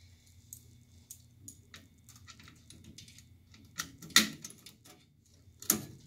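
Small metal hand tools and fittings clinking and rattling as they are handled and fitted at a furnace gas valve: scattered light clicks, with sharper clinks about four seconds in and again just before the end.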